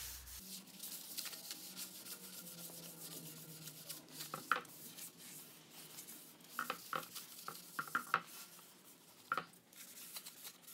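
Paper towel rubbing and rustling over a freshly stained wooden board in faint, scattered short strokes, wiping off the excess wood stain.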